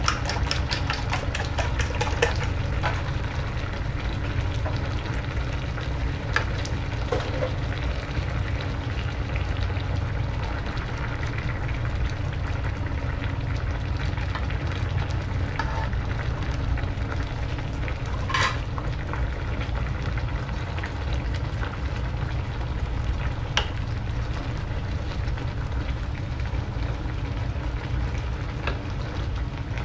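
Grouper-head and petchay soup boiling hard in a steel pot: steady bubbling and spitting over a low rumble. A dense run of crackles about as the beaten egg goes in at the start, and a few single sharp pops later.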